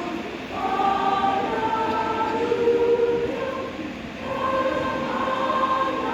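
Church choir singing in sustained phrases of held notes, with a short dip between phrases about four seconds in.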